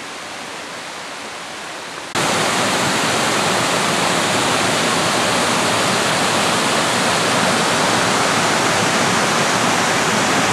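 Waterfall rushing, a steady even noise of falling water. About two seconds in it suddenly becomes much louder and stays that way.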